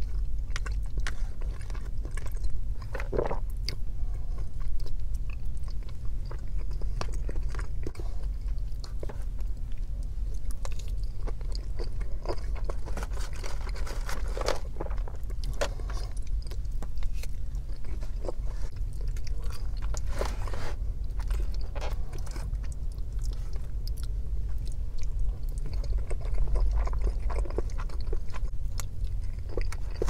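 Close-up chewing and biting of soft food, with a black plastic fork scraping and tapping in a black plastic takeout bowl. Many short clicks come throughout, over a steady low hum.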